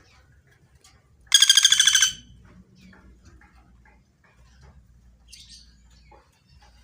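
Common flameback woodpecker (pelatuk bawang) giving one loud, rapid rattling call about a second in, lasting under a second, with a fainter call near the end.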